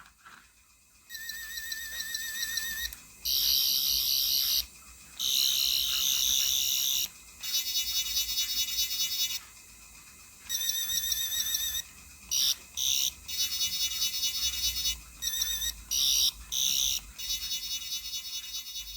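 Character Options 10th Doctor sonic screwdriver toy playing its high, warbling electronic sound effect through its small speaker, in about a dozen separate bursts, some long and some short. It works with its freshly refitted LR44 button-cell batteries.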